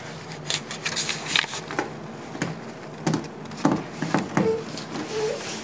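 Scattered soft knocks and rustles in a small room, with two brief faint murmurs near the end.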